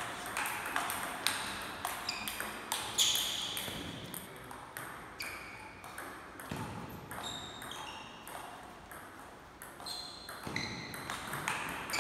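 Table tennis rallies: the plastic ball clicks off rubber paddles and the tabletop in quick alternation, each hit leaving a brief ringing ping. The hits thin out about halfway through, then pick up again near the end.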